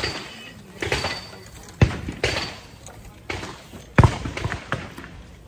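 Several gunshots at irregular intervals, two of them clearly louder than the rest, about two and four seconds in.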